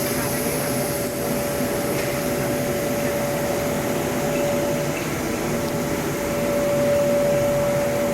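Air-float blower of an insulating-glass spacer application table running: a steady rushing hum with a constant whine, growing a little louder about seven seconds in.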